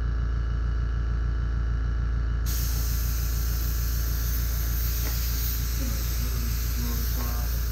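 Fortress 1-gallon ultra-quiet oil-free air compressor running steadily as it pumps up its tank: a low hum with a fast, even pulse of the pump and a hiss over it.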